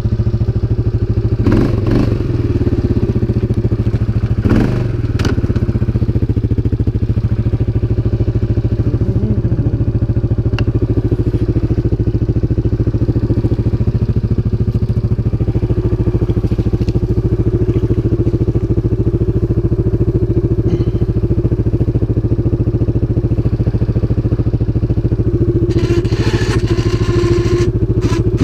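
CFMOTO 500 ATV's single-cylinder engine running at a steady speed, with a few knocks about two and five seconds in and a burst of clattering near the end.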